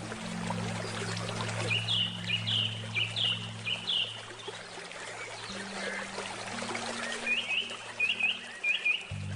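River water flowing steadily, with a bird singing two runs of quick repeated chirps. Soft, low handpan tones ring underneath, and a new low note is struck near the end.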